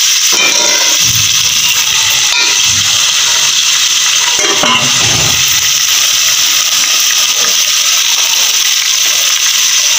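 Chicken pieces frying with onions in oil in an aluminium pot, a steady sizzle, with a few knocks from handling near one and five seconds in.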